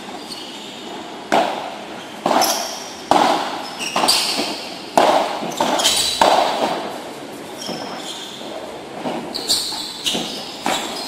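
Padel rally: a padel ball struck back and forth with solid rackets and bouncing on the court, each hit a sharp pop with a short echo. About seven hits come in the first six seconds, then a few lighter ones near the end.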